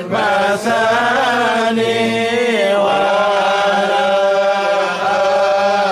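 A group of men chanting together in Sufi dhikr, with long held notes in unison that shift pitch a few times early on and then hold steady.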